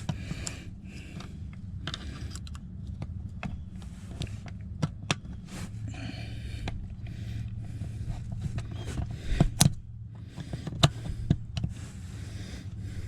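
Irregular clicks, taps and scrapes of a hard plastic seat latch release handle and its tabs being worked loose by hand, over a steady low hum. The sharpest clicks come about two thirds of the way in.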